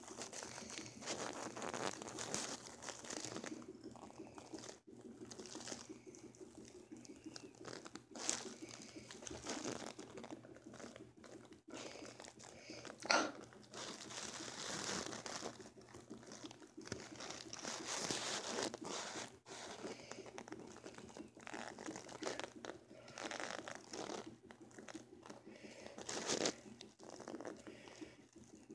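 A cat's fur rubbing and brushing against the person and close to the phone's microphone: rustling and crackling in uneven bursts, with a sharp click about halfway through.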